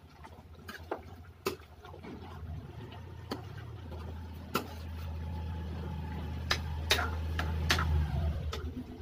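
A metal ladle stirs chicken curry in a wide aluminium pan, knocking and clinking irregularly against the pan, with a low steady hum beneath that grows louder through the middle.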